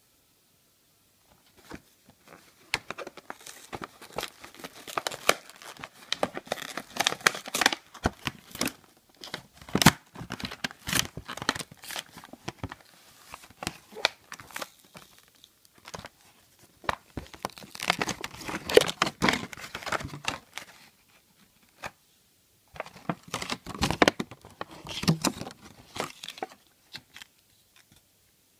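Action-figure packaging, its clear plastic blister and card, being crinkled and torn open by hand: irregular crackling and rustling with a few short pauses.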